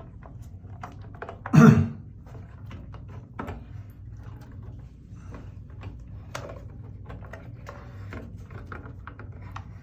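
Shower head being unscrewed and worked off its pipe: scattered small clicks and knocks, with one louder clunk about a second and a half in.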